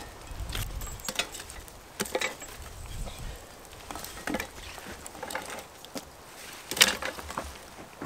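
Small dry sticks being laid and dropped onto the cast-iron lids of Dutch ovens heaped with embers: irregular light clatters and knocks of wood on wood and iron, the loudest near the end.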